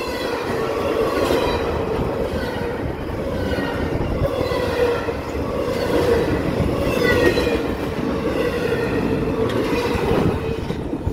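CSX double-stack intermodal freight train passing close at speed: a steady rumble and rattle of wheels on rail. Thin high-pitched wheel whines come and go every couple of seconds.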